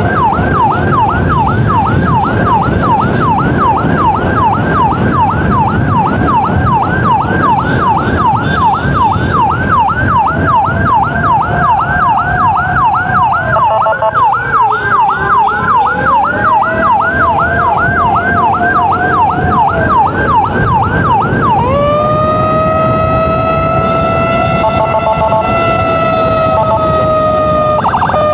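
Emergency siren sounding loud and close during an ambulance escort: a fast yelp sweeping up and down about three times a second, with a second, lower tone sinking and rising back partway through. About 22 seconds in it switches to a long, steady wail. The motorcycle's engine and wind noise run underneath.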